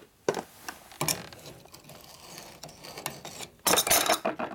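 Wrench being worked on a lathe's leveling-foot screw to loosen it: scattered metal clicks, then a louder run of rapid clicking and scraping near the end.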